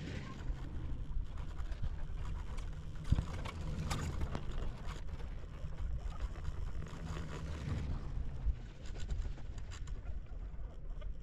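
Wind buffeting an action camera's microphone on a moving chairlift: a steady, fluctuating low rumble. A few faint clicks sound through it, and one sharp knock comes about three seconds in.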